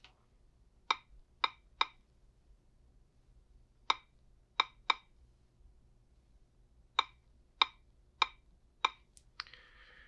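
Key-press clicks from the Qolsys IQ Remote PowerG touchscreen's on-screen keyboard as a Wi-Fi password is typed in. About ten short clicks in three bunches: three, then three, then four.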